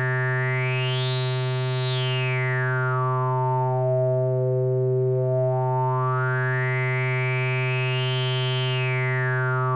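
Analog modular synthesizer holding a steady low tone rich in harmonics through a resonant filter. The resonant peak sweeps up high and back down twice, bringing each harmonic forward in turn as it passes.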